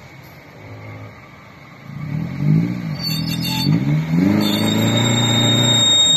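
Suzuki Grand Vitara engine idling low, then revved in several rising-and-falling blips from about two seconds in and held at higher revs, the 4x4 under load as it crawls over a cross-axle rut with one wheel lifted. A thin, steady high whistle joins near the end.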